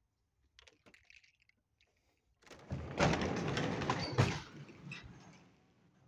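Wooden outbuilding door being worked open: a few light clicks, then about two seconds of loud scraping and rattling with two sharp knocks, fading out.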